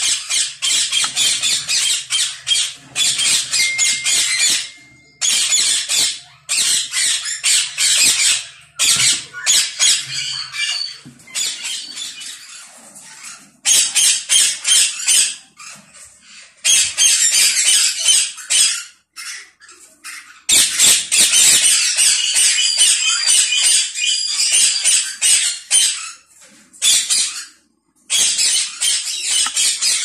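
Indian ringneck parakeets screeching, harsh high calls in rapid runs broken by short pauses.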